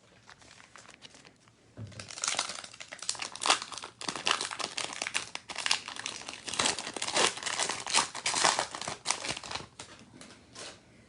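A trading-card pack's wrapper being torn open and crinkled, with dense crackling from about two seconds in until near the end.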